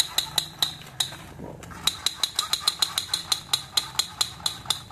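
Toy pistol's rapid-fire shooting sound effect: a fast, even train of sharp clicks, about six or seven a second, with a short break about a second in.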